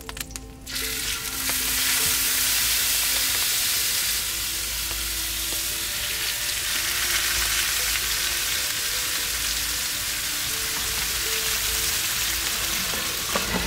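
Two ribeye steaks searing in clarified butter in a very hot cast iron skillet, at about 500°F: a loud, steady sizzle that starts suddenly about a second in as the meat goes into the pan.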